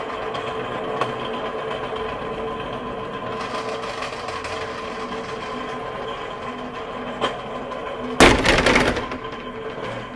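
Electric pallet jack running with a steady whine as it rolls over a hard floor. About eight seconds in comes a loud crash with clatter lasting just under a second.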